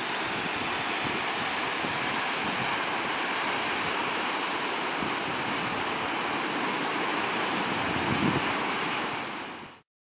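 Steady rushing of a rocky mountain stream and waterfall in a gorge, with some wind buffeting the microphone about eight seconds in; it fades out near the end.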